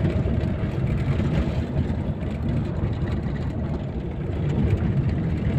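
Steady engine and road noise from a moving vehicle being driven along a road.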